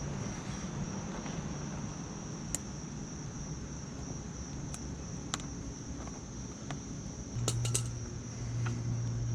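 A few sharp light clicks of work on the oil-tank drain plug being refitted, over a steady high whine and low hum; a louder low steady hum comes in near the end.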